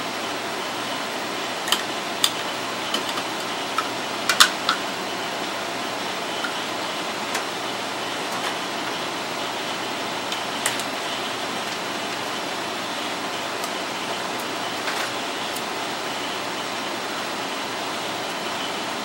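Steady fan-like hiss with a few sharp clicks and light taps scattered over it, the loudest cluster about four seconds in and a last one about ten seconds in.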